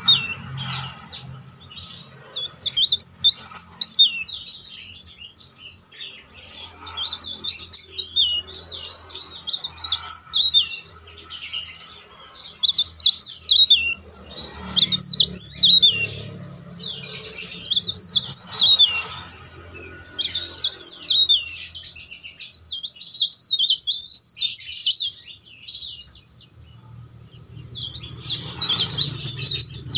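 Cikrak daun (mountain leaf warbler) singing loud, shrill whistled phrases of quick up-and-down notes, a new phrase about every two seconds. A thin steady high tone runs underneath from a few seconds in.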